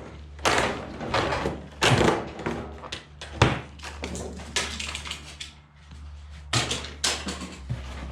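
Handling noises from unpacking a car lift: a run of irregular knocks, thuds and scraping from parts and packaging, with one sharp knock about three and a half seconds in, over a steady low hum.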